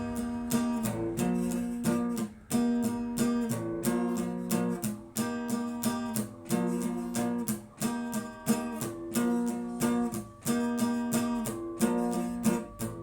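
Instrumental song intro: acoustic guitar strumming chords in a steady rhythm.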